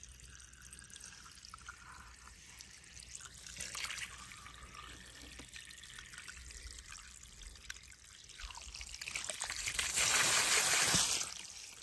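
A stream of water poured onto a small toy car lying in grass, splashing steadily for about two seconds near the end.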